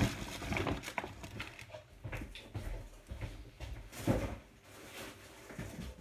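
Scattered clicks, knocks and rustling from groceries being handled and put away in a kitchen, with one louder knock about four seconds in.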